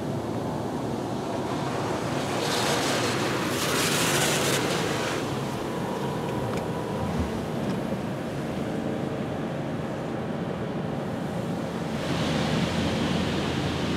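High-pressure water jets of a PDQ LaserWash 4000 touchless car wash spraying over the car, heard from inside the cabin: a steady rushing hiss that swells louder about three seconds in and again near the end.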